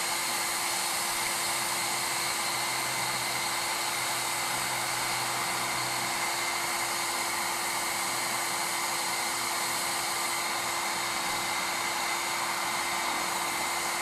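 Homemade bee vacuum running steadily, its hose drawing honey bees off the comb: an even rush of air with a constant low hum. It runs at very low speed so it doesn't hurt the bees.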